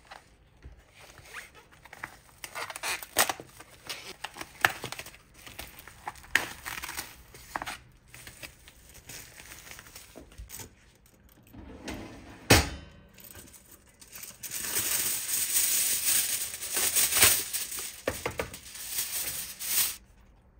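Crinkling and rustling of food packaging, then a single thump. After that comes several seconds of louder crinkling and tearing, aluminium foil being pulled out and pressed into a stove's fish-grill drawer.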